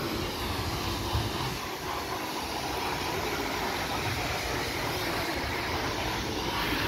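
Steady noise of passing road traffic.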